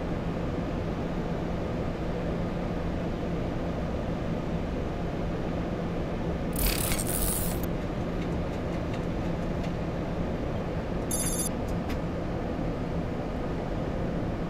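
Steady rush of air and a low hum on a Boeing 737-800 flight deck in flight. About six and a half seconds in, a short hissy whoosh comes with a glitch transition effect, and about eleven seconds in a brief high electronic chirp.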